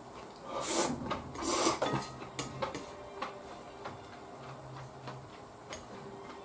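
A person eating: two short, hissy slurps about a second apart near the start, then scattered light clicks of chopsticks against a plate and bowl.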